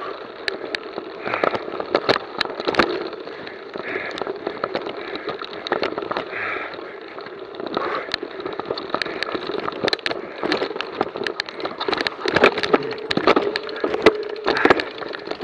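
Mountain bike rattling over a rough dirt trail at low speed: frequent irregular clicks and knocks from the bike and its camera mount over a steady rushing noise.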